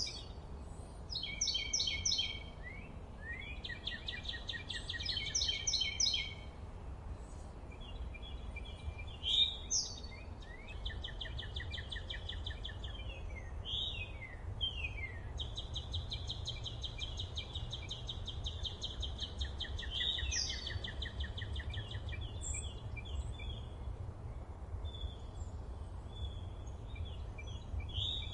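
Several songbirds singing, with rapid repeated trills and chirps overlapping one another throughout, over a steady low background rumble.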